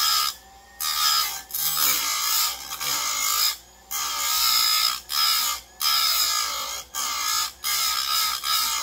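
Electric bench chainsaw-chain grinder's wheel grinding the cutting teeth of a new chain, in a string of short passes about one a second with brief dips between. The teeth's top plates are being re-ground to a steeper angle than the factory one.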